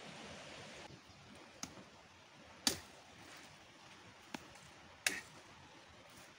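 Conifer branches cracking as they are broken off the tree: four sharp snaps a second or so apart, the loudest near the middle. A steady hiss stops about a second in.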